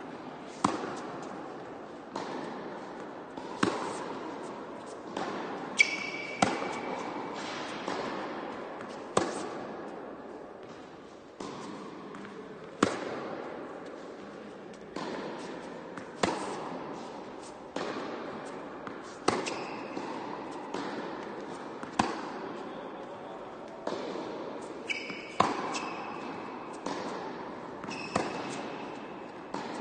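Tennis rally on an indoor hard court: racket strikes and ball bounces about every second or so, each ringing out in the hall's echo. There are a few short, high squeaks.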